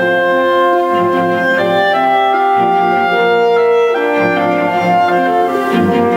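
Slow instrumental music of long held, overlapping notes, with no beat.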